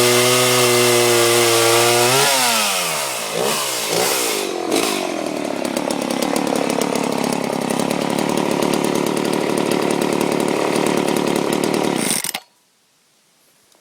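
Homelite 360 two-stroke chainsaw engine running at high speed, then dropping off throttle about two seconds in. It is blipped twice, settles into a rough, fast-ticking idle, and shuts off suddenly near the end.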